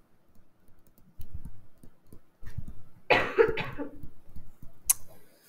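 A person coughing once, about three seconds in. Around it are light taps of a stylus writing on a touchscreen, and a sharp click near the end.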